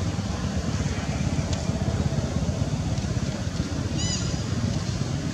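Steady low rumbling noise outdoors, with one short high squeak about four seconds in from a young long-tailed macaque at play.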